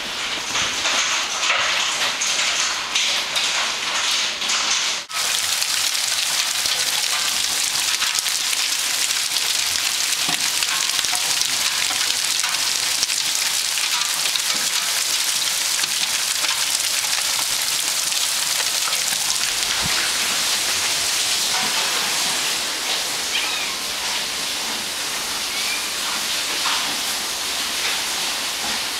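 Hail and heavy rain pelting down, a dense, steady hiss of ice pellets and water striking hard ground. It becomes fuller after a brief break about five seconds in and eases slightly near the end.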